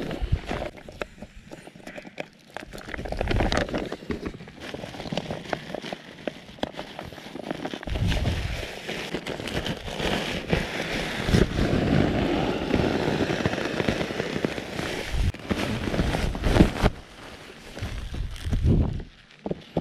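Crinkling and rustling of thin nylon fabric: a packraft hull being spread out, then its pump sack being scooped full of air and squeezed to push the air into the raft.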